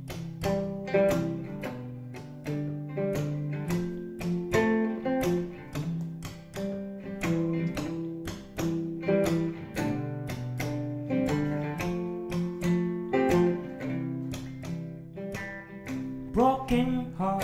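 Solo acoustic guitar, capoed, strummed in a steady rhythm through a repeating chord pattern as a song intro. A man's singing voice comes in near the end.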